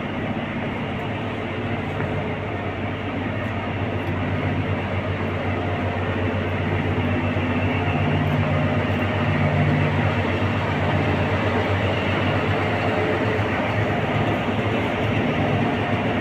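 Idling diesel engine of a narrow-gauge train standing at the station: a steady low hum over a constant rush, growing a little louder about halfway through.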